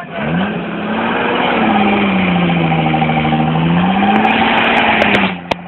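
Old jeep's engine revving up and down as it labours through deep mud, its pitch rising and falling twice. It cuts off abruptly near the end.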